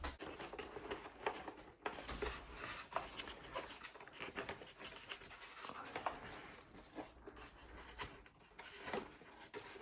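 Light rubbing and scattered small clicks and taps of a foam RC plane's wing being handled and fitted to the fuselage.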